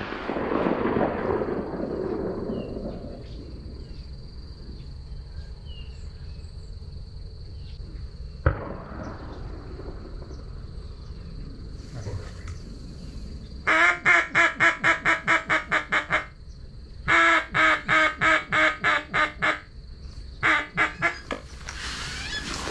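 Three rapid runs of loud duck quacks, about five quacks a second, starting about 14 seconds in. Earlier there is a sharp click with a short rush of noise at the start and another click about 8 seconds in.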